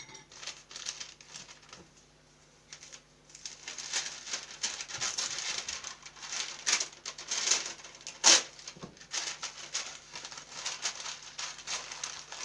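Parchment paper rustling and crinkling as it is folded and wrapped around pieces of cooked meat by hand: a few light rustles at first, then dense, irregular crinkling from about three seconds in, with one sharp loud crackle around the middle.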